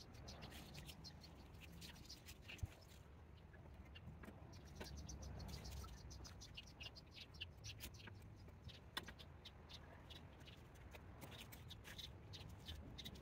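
Faint rustling and scraping of potting soil as gloved hands dig into it and press it around a basil plant in a plastic pot, with many small crackles.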